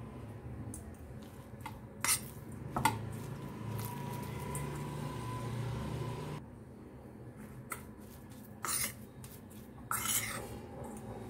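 Metal spoon clinking against a stainless steel bowl as a mashed potato and corn flour mixture is stirred: a few scattered sharp clinks, with a cluster about ten seconds in. A low steady hum runs for a few seconds in the middle.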